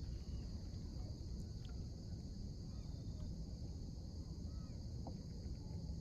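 Steady, unbroken chorus of crickets, a continuous high trill, over a low steady rumble, with a few faint short chirps.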